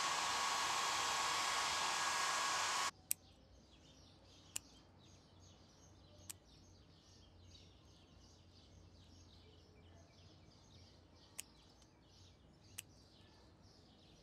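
A hair dryer blows loudly and steadily, then cuts off suddenly about three seconds in. Grooming scissors then snip sharply five times, spaced a few seconds apart, as they trim the fur around a dog's paw pads, with faint bird chirps behind.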